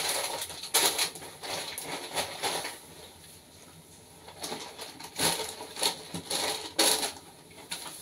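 Plastic bags and food packets rustling and crinkling in irregular bursts as they are handled and put back into a refrigerator, with a quieter pause about three to four seconds in.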